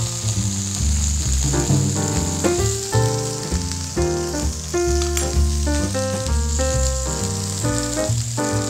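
A5 Wagyu steak pieces sizzling steadily as they sear in a hot, oiled frying pan, mixed with background music of quick keyboard-like notes over a bass line.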